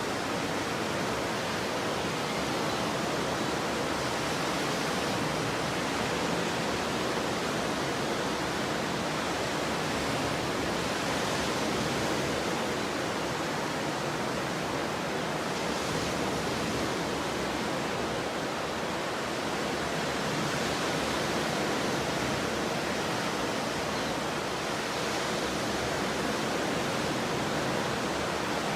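Stormy ocean surf: a steady, even rush of breaking waves, with no single crash standing out.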